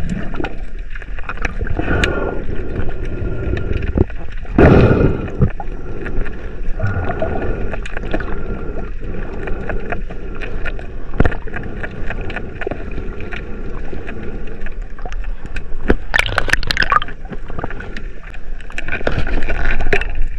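Underwater sound picked up by a camera in its housing: muffled water movement and gurgling, with many scattered sharp clicks. There are louder rushes about five seconds in and again about three-quarters of the way through.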